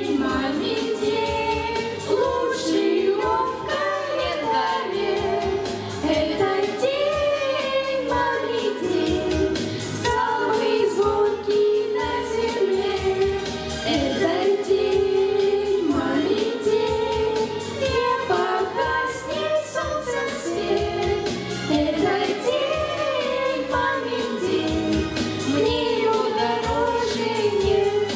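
Children's vocal ensemble singing a song together into microphones, with musical accompaniment.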